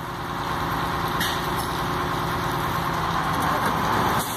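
Piston-type high-pressure water pump running steadily under pressure: a continuous machine drone with a hiss over it, growing slightly louder and then dipping just before the end. Its piston packing has been loosened and it runs without the earlier noise.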